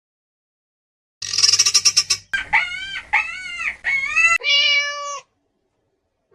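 Animal calls: a short burst of rapid, shrill chatter, then three or four rising-and-falling pitched cries and one steadier held cry.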